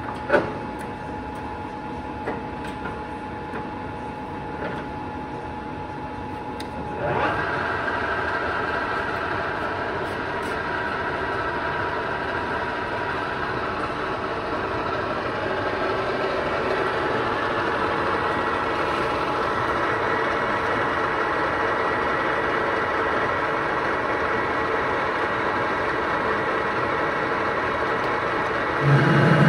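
Ajax gap bed centre lathe running. A lever clicks at the start. About seven seconds in, the drive engages and the headstock gearing runs steadily with a whine. Near the end it gets louder, with a low hum.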